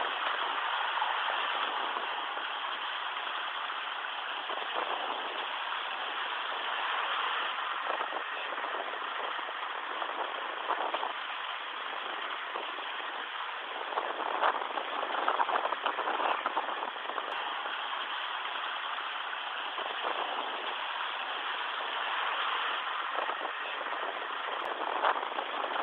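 Steady rushing of sea water around a moving boat, swelling and easing a little.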